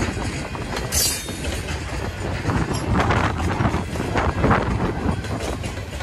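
Empty freight train of grain cars rolling past, wheels clacking over the rail joints over a steady low rumble.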